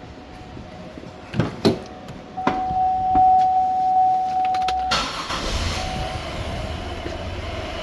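2004 Buick LeSabre's 3.8-litre V6 being started: two clicks, then about two and a half seconds of cranking, after which the engine catches and settles into a steady idle. It is running with one fuel injector unplugged to make a misfire.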